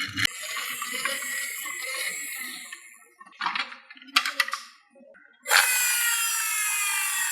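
Marbles rolling along a wooden HABA marble run, a rolling rumble that fades out, then a quick series of clacks as marbles knock against the track. Over the last couple of seconds a steady rolling whir sets in, its pitch slowly falling.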